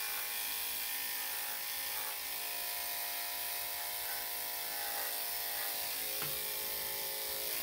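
Corded electric dog grooming clippers with a number 10 blade running with a steady buzzing hum as they shave the fur short on a dog's face.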